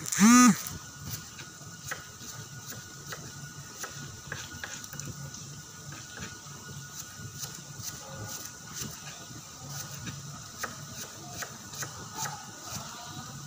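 Sliced shallots (bawang sumenep) deep-frying in a wok of oil: a steady sizzle with many small irregular crackles and pops. Right at the start there is a short, loud squeaky call whose pitch rises and falls.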